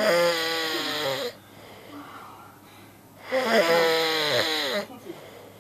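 A sleeping person snoring loudly: two long snores about three seconds apart, each sliding down in pitch as it ends.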